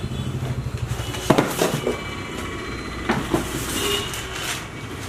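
A flat-screen TV in a plastic bag being pulled out of its cardboard box: cardboard scraping, two knocks about a second and three seconds in, then crinkling of the plastic wrap near the end.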